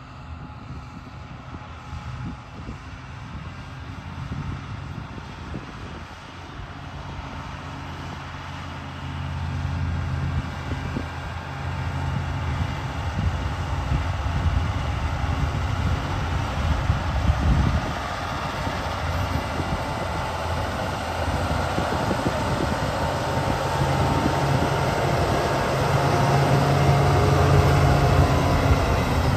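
Caterpillar 120H motor grader's diesel engine running as the grader works the dirt, with a steady low engine note that grows louder as the machine comes closer.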